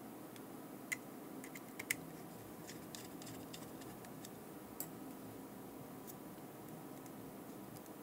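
Small screwdriver turning screws into a GPS unit's plastic housing: a few sharp faint clicks and ticks, the loudest about one and two seconds in and another near five seconds, over a steady low hum.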